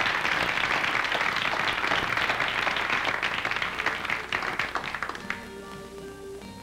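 Audience applauding, the clapping dying away about five seconds in as music with held pitched notes comes through.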